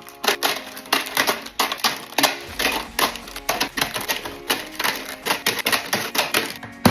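Quick run of sharp clicks and taps, several a second, as snack packs and containers are set into a mini fridge during a restock, over faint background music.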